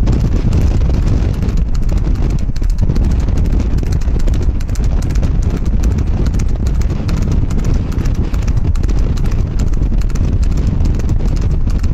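A horse galloping on asphalt, its hoofbeats ticking quickly and continuously over a steady low rumble.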